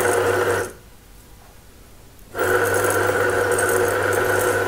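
Banknote counting machine's motor and feed rollers running empty with a steady whirring hum. It stops about a second in and starts again after a short pause, cutting off near the end, switched on and off by its hopper sensor.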